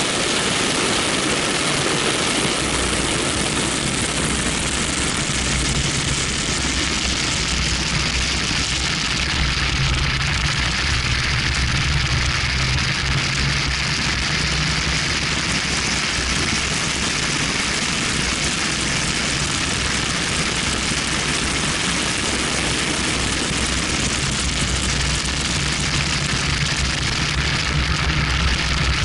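BMW 1M's twin-turbo straight-six running at speed on track. It is heard through a camera mounted on the outside of the car, under a steady rush of wind and road noise over the microphone.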